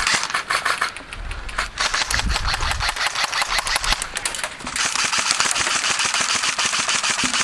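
Airsoft guns firing rapid full-auto bursts: a fast rattle of clicks with brief pauses between bursts.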